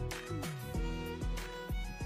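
Background music: sustained melodic tones over a steady beat, about two strokes a second.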